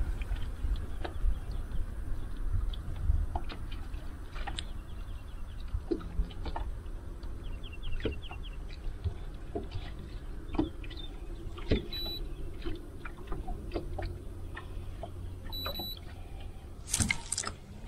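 Handling sounds on a fishing boat: scattered small clicks and knocks over a steady low rumble, with a quick run of ticks about halfway through. Two short, high electronic beeps come in the second half, and a louder rustle comes near the end.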